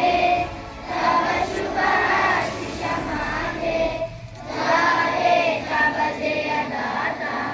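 A large group of children singing together in unison, in sustained phrases with short breaths about one second and four seconds in.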